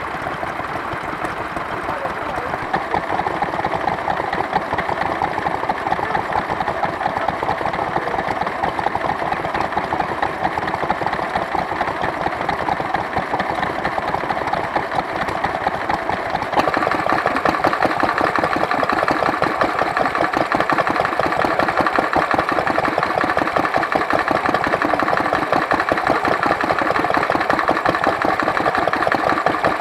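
Small vintage stationary engines running together with a fast, regular beat. About halfway through the sound gets louder and brighter.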